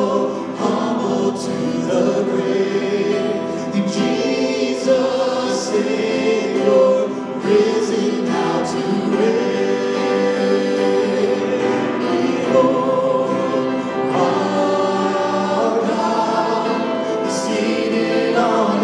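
Church worship team singing a hymn together, several voices in chorus, accompanied by piano and acoustic guitar.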